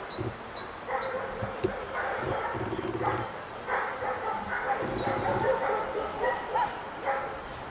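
A dog barking and yipping, with people's voices talking.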